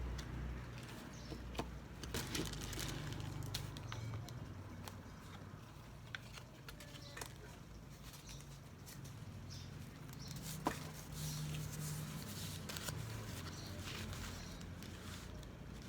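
Small handling noises: light rustling with scattered clicks and taps over a steady low hum.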